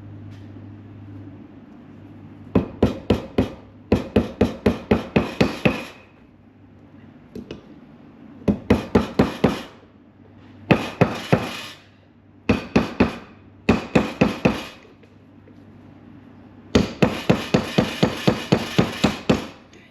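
Hammer tapping a flat driver to seat the inner grease seal in a 1985 Chevy C10 front hub: runs of quick, ringing metal-on-metal taps, about five a second, broken by short pauses, with the longest run near the end.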